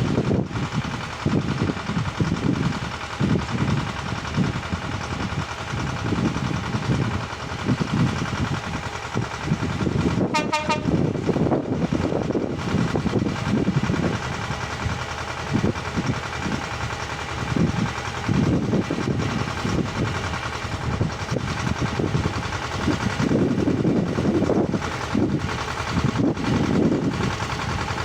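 Small petrol motor cultivator running steadily as its rotary tines work the soil, with an uneven low rumble under the engine note. About ten seconds in there is one brief high-pitched squeal.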